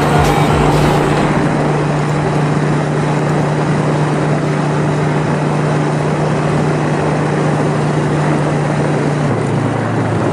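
Motorbike engine running at a steady cruising speed, with wind rushing over the microphone. The engine note drops about nine seconds in as the bike eases off.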